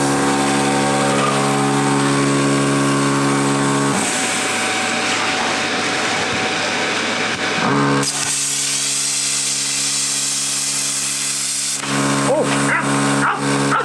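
Electric angle grinder running with a steady whine, cutting through old thin sheet metal on a car's front end. For a few seconds in the middle the whine gives way to the harsh noise of the wheel biting into the metal, then it runs free again.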